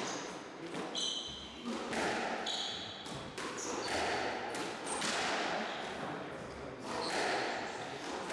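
Court shoes squeaking and scuffing on a wooden squash court floor, with several short squeaks and a few sharp knocks in a reverberant court.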